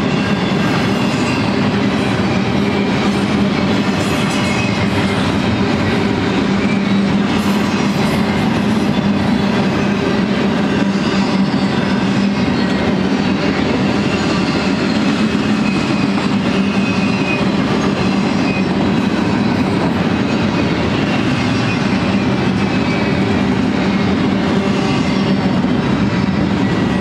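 Double-stack container train's well cars rolling past at steady speed: a continuous, even noise of steel wheels on rail with no let-up.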